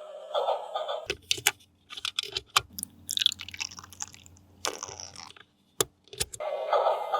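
A battery toy vehicle's electronic siren or sound effect pulses in a repeating pattern, then cuts off about a second in. For several seconds there are sharp clicks and crinkly plastic handling noises. The electronic sound starts again near the end.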